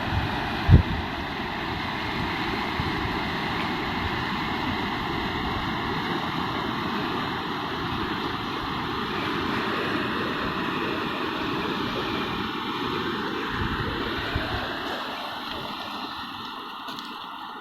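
Steady rush of a flooded river's fast-flowing water, with low wind rumble on the microphone. There is a single sharp thump just under a second in, and the rush grows quieter over the last few seconds.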